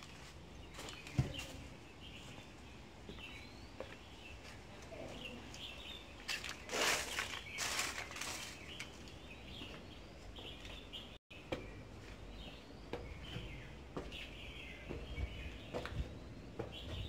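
Small birds chirping on and off in short, gliding calls, over a background hush, with scattered clicks and a louder crunching rustle about seven seconds in, like footsteps and handling on debris.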